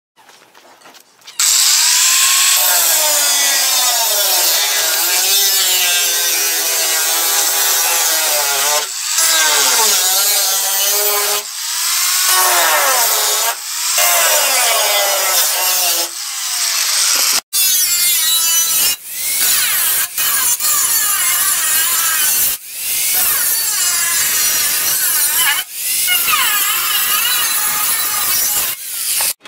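Electric angle grinder starting about a second in and cutting into the thin sheet-metal fender of a Chevy C1500 truck. Its whine rises and falls as the disc bites and eases, and it lets off briefly several times, with one sudden full stop just past the middle.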